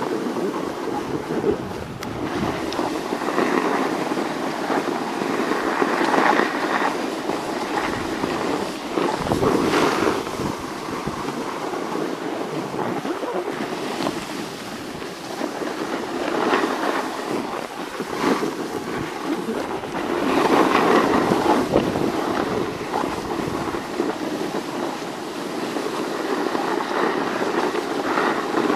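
Steady rushing noise of riding down a groomed snow slope: wind buffeting the microphone and edges scraping over the snow, swelling every few seconds as the turns dig in.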